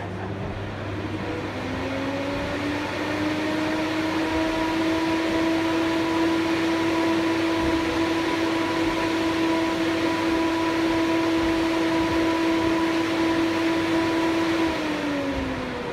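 A steady drone of several tones held together. It glides up in pitch and swells a couple of seconds in, then slides down and fades near the end, over a noisy background hiss.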